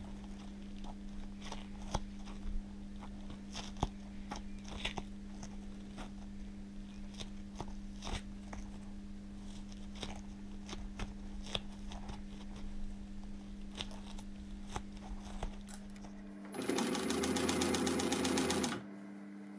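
Gloved hands press together the glued edges of a piece of foam, making scattered small sticky crackles and taps over a steady low hum. Near the end an industrial sewing machine runs a fast burst of stitching for about two seconds, the loudest sound here.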